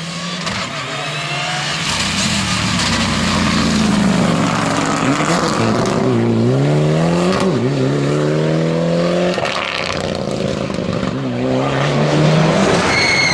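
A Mitsubishi rally car accelerating hard, its engine rising in pitch and dropping back at each upshift. It lifts off abruptly about two-thirds of the way in, then accelerates again. A high tyre squeal begins right at the end.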